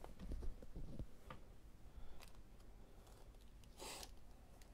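Faint room tone with a few soft, scattered clicks and a short rustle about four seconds in.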